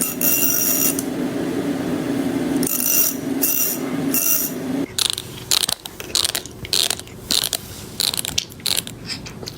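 Teeth of a comb being rubbed, a rapid ratchet-like rasp, held for about five seconds, then broken into short repeated strokes about two or three a second.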